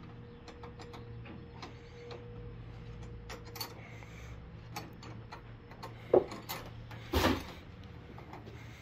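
Scattered light clicks and taps of tools and parts being handled, with two louder knocks about six and seven seconds in, over a steady low hum.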